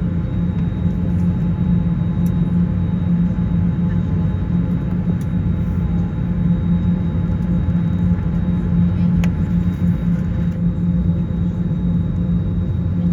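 Steady low rumble and hum inside the cabin of a JetBlue Airbus A321neo, with a few faint clicks.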